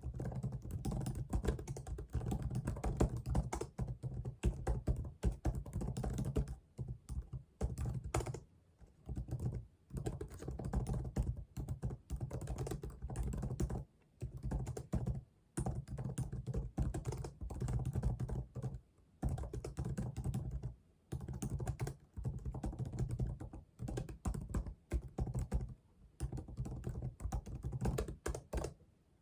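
Fast typing on a computer keyboard: rapid key clicks in bursts of several seconds, broken by short pauses.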